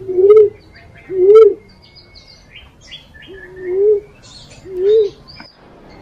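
Fruit dove (punai walik) cooing: four low hooting coos, each rising then falling, in two pairs about a second apart, with faint high chirps of other birds between them.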